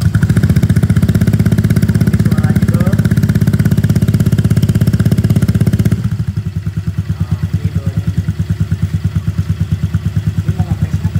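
Honda Vario 125 scooter's single-cylinder engine idling through a CLD C1 aftermarket exhaust, just after starting, with a steady, even pulsing. About six seconds in it drops to a softer, lower idle.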